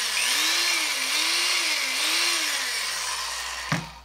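Black & Decker ¼-inch electric drill running on test after a cord replacement, its motor speed rising and falling several times as the trigger is worked. It then winds down about three and a half seconds in, followed by a knock near the end.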